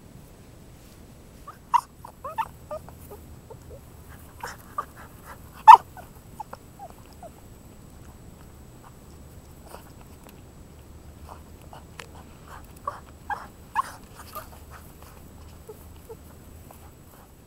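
Cavalier King Charles spaniel whining in short, high squeaks, in three bursts: about two seconds in, around five to six seconds in (the loudest), and again around thirteen to fourteen seconds in.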